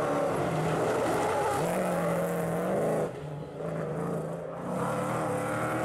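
Rally-raid car's engine revving hard as it passes close by, its pitch rising and falling with throttle and gear changes. About three seconds in it gets quieter, then climbs again in pitch near the end.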